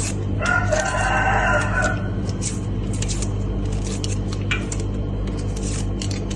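A single drawn-out animal call lasting about a second and a half, shortly after the start. Under it run a steady low hum and scattered light clicks.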